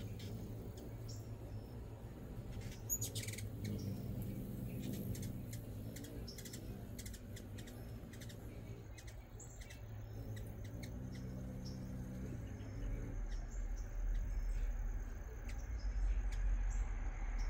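Hummingbirds making short, high chirps and chips, scattered irregularly throughout, over a steady low hum; a low rumble joins in about thirteen seconds in.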